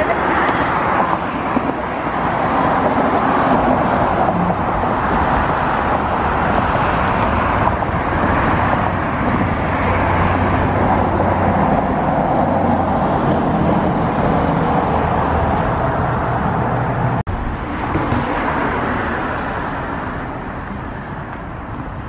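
Road traffic passing close by on a multi-lane street: steady tyre and engine noise, with a low engine drone through the middle. The sound drops out for an instant about 17 seconds in and grows a little quieter near the end.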